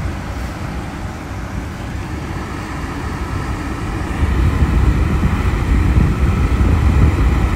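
Wind buffeting the microphone under a thunderstorm: a low, uneven rumble that grows stronger about four seconds in.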